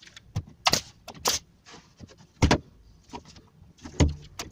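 Pneumatic pin nailer firing pins into wood: several sharp shots, each with a short hiss of air.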